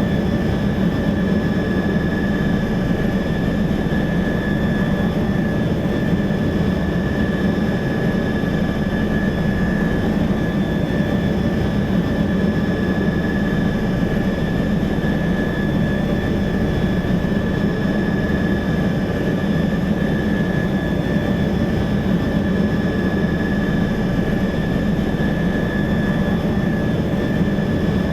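Helicopter cockpit interior noise: a steady, loud engine and rotor drone with a constant high turbine whine over it, unchanging throughout.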